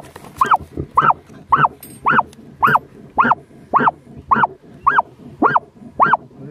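A hunting dog barking steadily inside an earth (burrow), just under two barks a second, each bark rising and falling in pitch. This is a dog baying at its quarry underground in vénerie sous terre, which tells the diggers where the animal is held.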